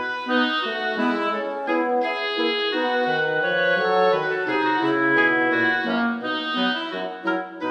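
Background music: an instrumental tune on a keyboard with an organ-like sound, melody over a bass line.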